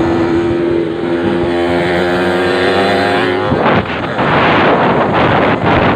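Yamaha RX-King two-stroke single-cylinder motorcycle engine running at a steady pitch, then a louder rough rushing noise takes over about three and a half seconds in.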